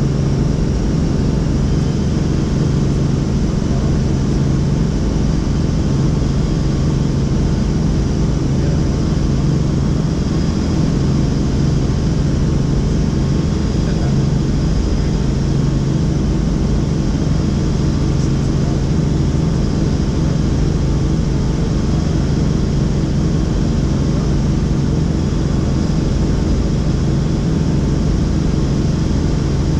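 Helicopter in flight: a loud, steady drone of engine and rotor with a strong low hum, unchanging.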